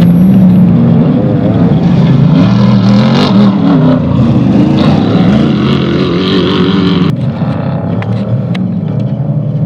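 Off-road race vehicle's engine running loud under changing throttle, its pitch rising and falling. About seven seconds in it eases off, with a few sharp knocks after.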